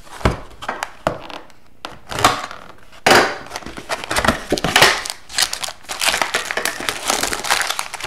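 Hands opening a cardboard trading-card hobby box and handling the foil card packs inside: irregular crinkling and rustling with scattered knocks. A louder burst about three seconds in comes as the box top is opened, and dense crinkling of the foil packs follows.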